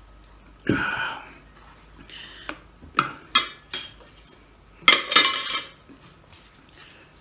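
Cutlery set down on a ceramic plate: a spoon and then a fork clinking against it in a few sharp clicks, then a louder clatter about five seconds in. Under a second in, a heavy glass mug is set down on the wooden table with a knock.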